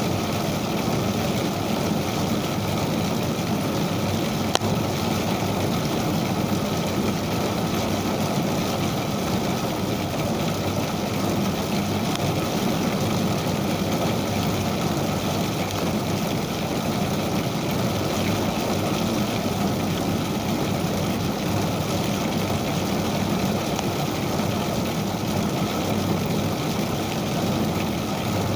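Ijuk (sugar palm fibre) combing machine running steadily, a continuous mechanical drone with no change in speed. A single sharp tick about four and a half seconds in.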